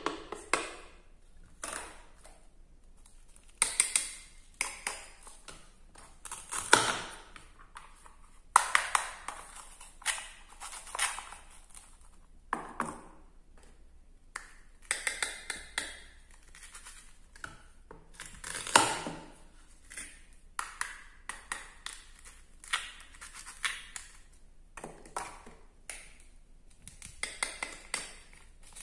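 Plastic and wooden toy kitchen pieces being handled: a wooden toy knife tapping and scraping on a plastic cutting board, and a plastic toy tomato cut apart into halves. The sound is a series of irregular clicks, taps and short crackling scrapes.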